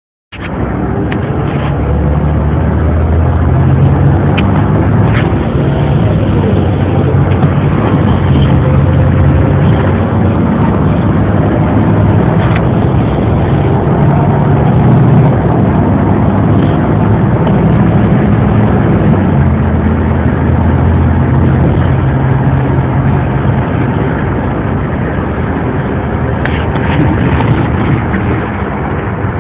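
Inside a 2002 ElDorado EZ-Rider II transit bus under way: the engine drone and road noise fill the cabin, the engine note swelling and easing as the bus gathers speed and slows, with a faint rising whine and a few short rattles.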